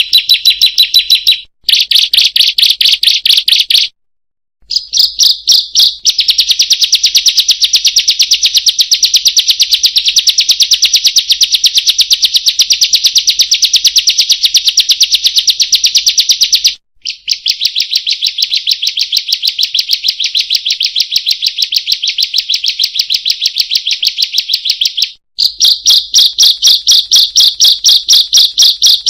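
Ciblek song: a rapid, steady string of sharp 'kriek' chirps, many a second, in long runs broken by a few brief pauses.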